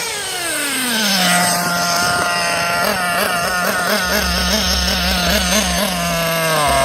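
Thunder Tiger EB4 S2 RC buggy's motor whining: the pitch falls over the first second as it slows, then holds, wavering about three times a second, and drops again near the end.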